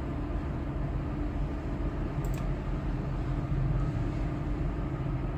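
Steady low mechanical hum of background machinery, with a faint single click about two seconds in.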